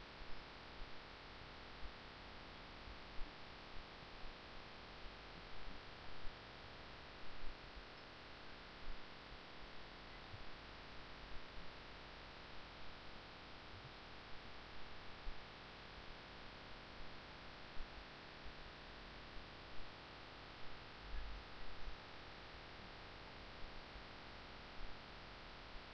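Low-level recording noise: a steady hiss with a faint hum, broken by irregular soft low bumps.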